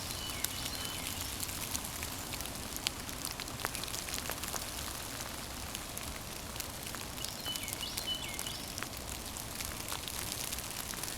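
Water drops pattering outdoors after a storm: light rain or drips from wet trees, scattered small ticks over a steady hiss. A bird gives short high chirps about half a second in and again around eight seconds in.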